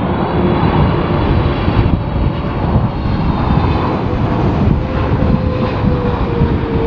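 Jet airliner engines passing close, a loud, steady rumble with a whining tone that drifts slowly in pitch.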